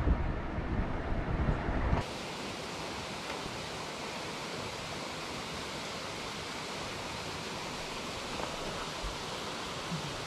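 Truck driving on a paved road, a loud low rumble of road and wind noise, cut off abruptly about two seconds in. Then a steady, even hiss with no distinct events.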